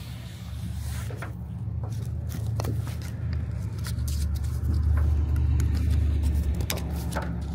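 Rustling and light clicks of a fabric engine inlet cover being handled and adjusted on a jet's nacelle, over a steady low rumble that grows louder after about four seconds.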